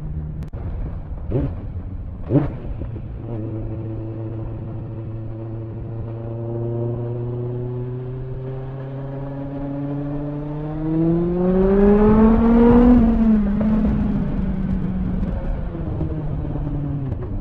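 Suzuki Bandit 1200's inline-four engine running under way, heard from the rider's seat. Its pitch climbs slowly as the bike pulls, then rises more steeply to its loudest about twelve seconds in, drops back and holds steady. Two short knocks come in the first few seconds.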